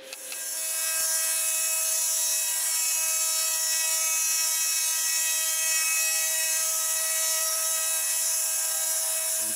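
A Grizzly benchtop mini mill's end mill cutting the side of cast aluminum blocks to square them up. It makes a steady whine of several fixed tones over a high, hissy cutting noise.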